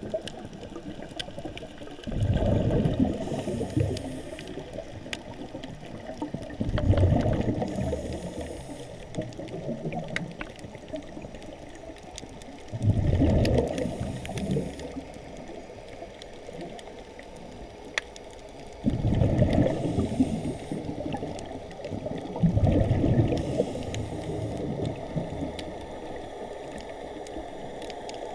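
Scuba regulator exhaust bubbles rumbling and gurgling in bursts of about two seconds, one every few seconds with each exhaled breath, heard through an underwater camera housing.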